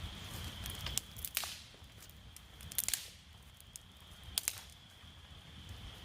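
Several sharp clicks and crackles over a steady high-pitched drone that fades out for a couple of seconds in the middle, with a low rumble underneath.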